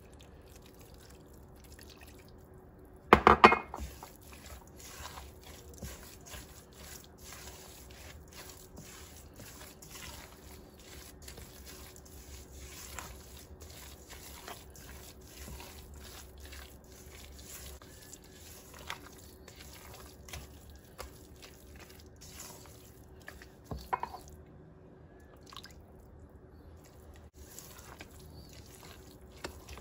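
Silicone spatula stirring and mashing a wet grated-cassava and milk batter in an enamel bowl: a steady run of small wet squishing and scraping sounds. A sharp clatter about three seconds in and a lighter knock near the end.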